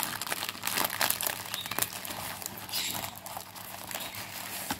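Plastic packaging of a diamond painting kit crinkling as it is handled, with many quick crackles.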